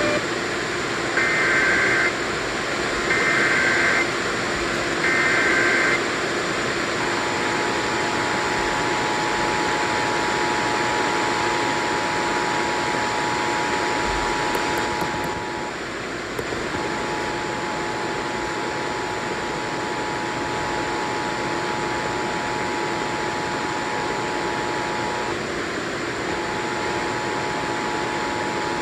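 Emergency Alert System test broadcast over FM radio. It opens with three short, harsh digital data bursts (the SAME header), then from about seven seconds in the steady two-tone EAS attention signal sounds, broken briefly twice, over constant radio hiss.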